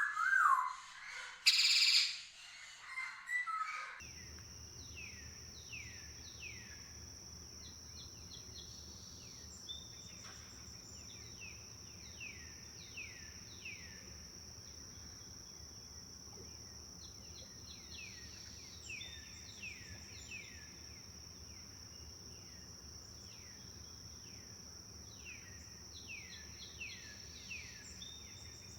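Wild birds calling. The first few seconds hold a few loud calls and a brief loud burst; then the sound changes to a run of many short, downward-sweeping chirps repeated over a steady high-pitched hum.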